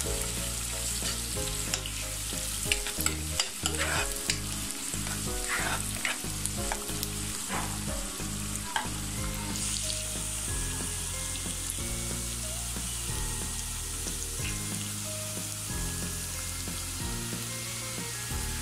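Sliced onions and whole spices frying in hot oil in a coated pot, sizzling steadily. A spatula scrapes and knocks against the pot in the first half, then the stirring stops and the sizzle carries on alone, a little brighter.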